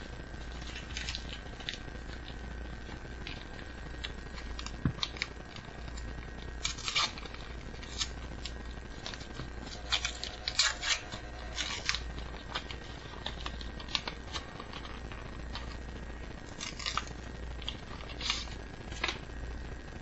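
Pokémon trading cards and their homemade paper packs being handled: short, scratchy rustles and slides of card and paper, coming in clusters several seconds apart. A steady low hum runs underneath.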